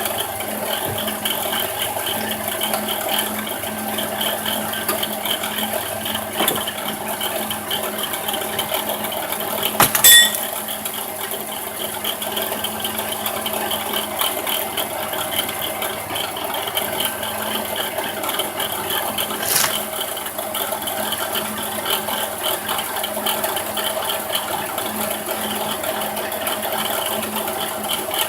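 2006 Dodge Grand Caravan's 3.8 L V6 running steadily with a rattling whir from the alternator, the sign of a bad alternator bearing. A sharp click about ten seconds in and a fainter one later.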